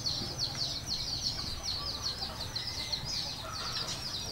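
Birds chirping continuously: many short, high-pitched chirps a second, each falling in pitch, overlapping one another.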